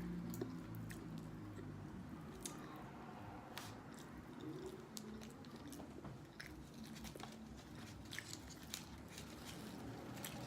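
Close-up eating sounds: biting and chewing fried food, with scattered small crunches and wet mouth clicks.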